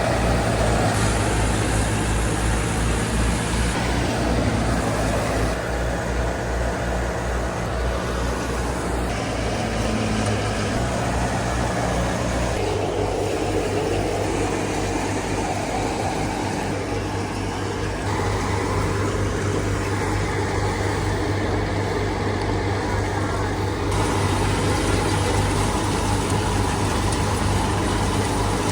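Massey Ferguson 385 tractor's diesel engine running steadily under load as it drives a mustard thresher, mixed with the thresher's machinery noise. The engine note shifts slightly about twelve seconds in.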